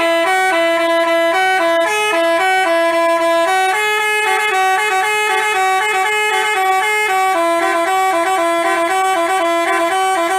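Basuri telolet bus horn, a multi-trumpet musical horn, playing a quick tune note after note without a break.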